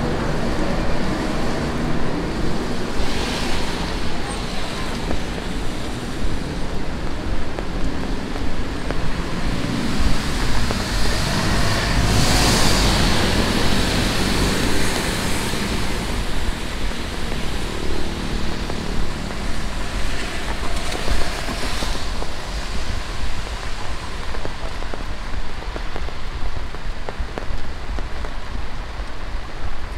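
Steady tropical rain, recorded binaurally, falling with a dense hiss. It swells louder a few times, most strongly about twelve seconds in.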